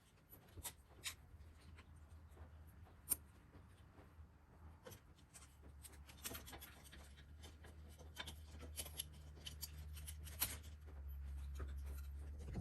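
Faint rubbing, scraping and scattered light clicks of hand work on motorcycle handlebar parts, over a low steady hum that grows louder in the last couple of seconds.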